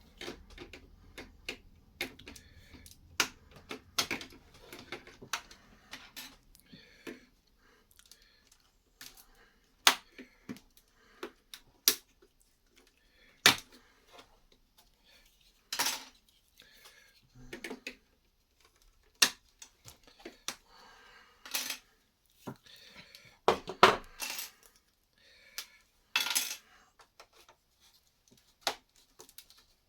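Plastic Lego bricks and pieces clicking, clattering and being pressed together by hand, in irregular sharp clicks with a few louder clacks.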